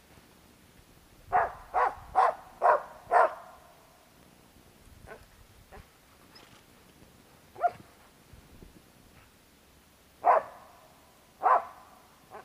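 Laika hunting dog barking at a squirrel up a tree: a quick run of five barks about a second in, then scattered single barks, with two more loud ones near the end. The barking marks the treed squirrel for the hunter.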